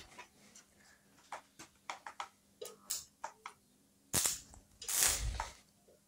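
Stick-welding electrode from a homemade welder struck against a steel plate to start an arc: scattered light ticks, then a sharp crack about four seconds in and a short crackling hiss about a second later.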